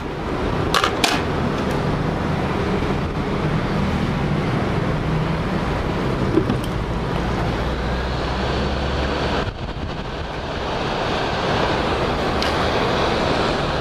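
Hot air rework gun blowing a steady rush of air, with a couple of light clicks about a second in; the hiss dips briefly and then turns brighter about two-thirds of the way through.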